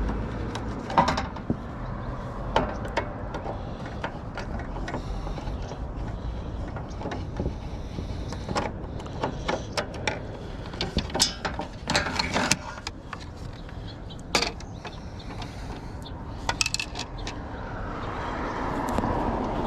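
Scattered metallic clicks, taps and clinks of a hand tool and small screws being worked out of a car's pop-up headlight assembly. A broad rushing noise swells up near the end.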